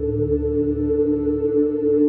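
Ambient background music: steady held tones over a low drone.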